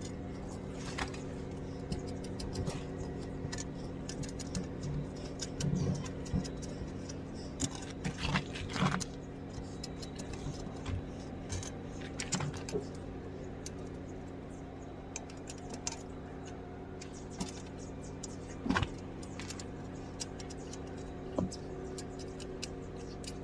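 Small steel parts clinking and tapping as bolts and linear-rail carriage blocks are handled on a steel plate, in scattered clicks with a cluster a few seconds in. A steady hum runs underneath.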